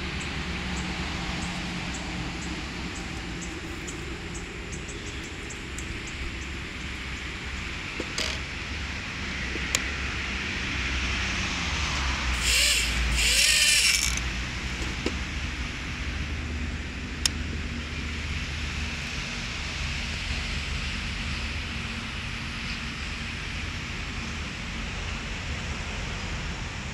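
Steady outdoor wind rumble and handling noise. About twelve seconds in, the Eachine QX95's micro motors and propellers spin up in two short loud bursts of whirring, together lasting about a second and a half.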